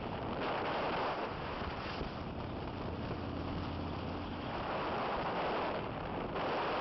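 Wind buffeting the microphone on a moving motorcycle at road speed, over engine and road noise, swelling louder several times. About halfway through, a low engine drone stands out for a second or so.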